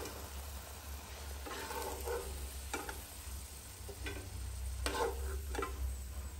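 Batter-coated potato fritters (bhaji) sizzling in hot oil in a kadhai, with a metal spatula scraping the pan several times in short strokes as the fritters are turned and lifted out.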